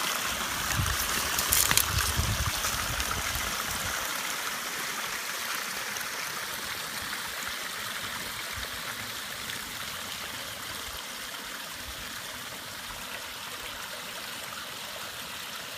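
Water from a small backyard waterfall feature trickling and splashing in a steady hiss, slowly growing fainter, with some low rumbling in the first few seconds.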